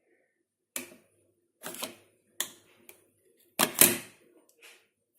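Sharp plastic clicks and knocks as a Finish Quantum Ultimate tablet is placed and pressed into a Hotpoint dishwasher's detergent dispenser, about five of them, the loudest a double knock near the end.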